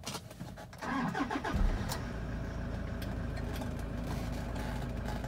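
A 2013 Toyota Hilux Workmate's four-cylinder turbo diesel is cranked by the starter for about a second, catches, and settles into a steady idle at about 1,000 rpm.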